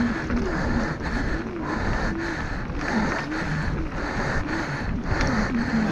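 Mountain bike rolling and rattling over a rough trail, with the rider's hard, rhythmic breathing close to the microphone.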